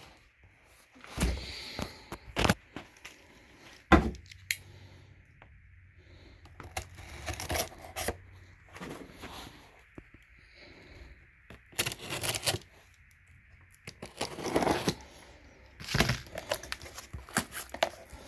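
Cardboard box and packing being handled and pulled open: scattered rustling, scraping and tearing with sharp knocks, the loudest about four seconds in.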